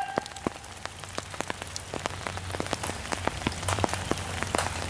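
Rain falling on the leaves of wet woodland, with many irregular drops ticking close by and a low rumble underneath that builds about a second in.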